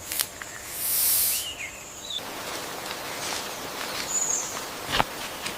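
Forest ambience with scattered bird chirps and a faint high insect tone, a short loud hiss about a second in, and a sharp snap near the end.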